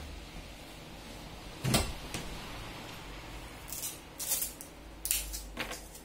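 A single thump, as of a person sitting down heavily on a chair, followed by a small click, then several short scraping and rustling noises of hands handling a repair over a low hum.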